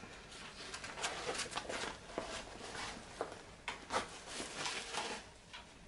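Fabric tactical vest being handled: soft rustling of the cloth with scattered light clicks and taps.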